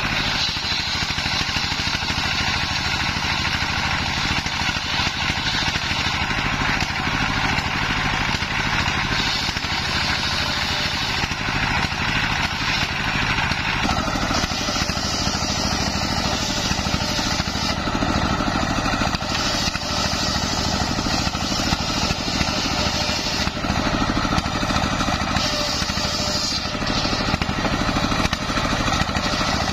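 Stationary engine running steadily, belt-driving a homemade circular saw whose blade is ripping waru wood into rafters, with a dense, hissing saw noise over the engine. The sound changes character once about halfway through.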